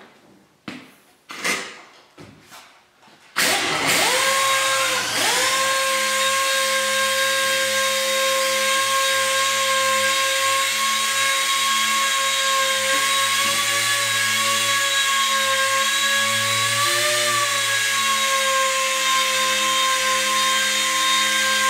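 Pneumatic dual-action orbital sander sanding the painted steel roof of a car down to bare metal to knock off old glue residue and rust. After a few knocks, the motor starts about three seconds in, its whine rising in pitch, then runs at a steady high pitch with a hiss, wavering briefly in pitch near the end.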